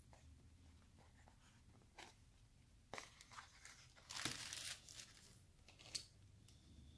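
Faint plastic handling: a few light clicks, then a short burst of crinkling plastic about four seconds in. The sounds come from a plastic takeout tray being set down on a plastic carry-out bag and plastic cutlery being picked up.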